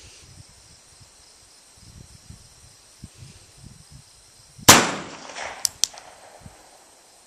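A single gunshot from a Nagant M1895 revolver firing an original 7.62x38R Nagant cartridge, a sharp crack about two-thirds of the way in that rings out briefly. Two short sharp clicks follow about a second after the shot.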